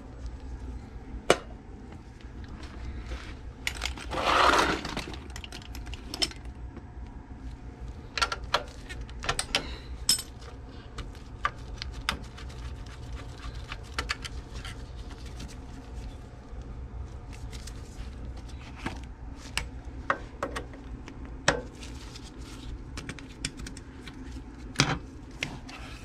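Scattered metallic clicks and clinks of hand tools and screws while an oil burner's igniter is unscrewed and lifted off, with a brief rustling scrape about four seconds in, over a steady low hum.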